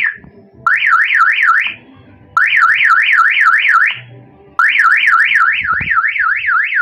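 Motorcycle horn of the warbling, siren type sounding in repeated blasts, each a pitch sweeping rapidly up and down about three to four times a second. There are three full blasts after the end of a first one, the last about two seconds long.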